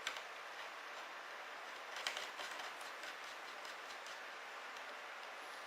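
Faint clicks and light rattling from hands handling the wireless IP camera and its cables, over a steady hiss, with a small cluster of clicks about two seconds in.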